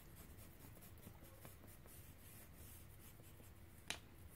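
Faint scratching of a soft black Stabilo All pencil on paper, with light rubbing, and a single short tap near the end.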